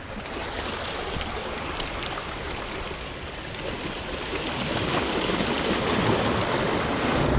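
Ocean surf washing on the shore, a steady rush of water that swells louder over the last few seconds.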